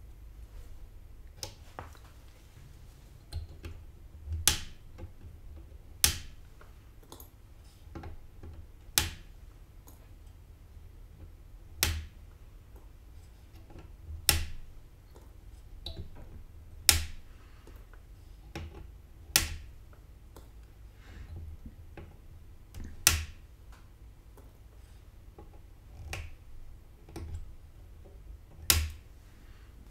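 Flush cutters snipping off the protruding leads of newly soldered capacitors on a motherboard's underside: a sharp snip every two or three seconds, about ten in all, with a few fainter clicks between them.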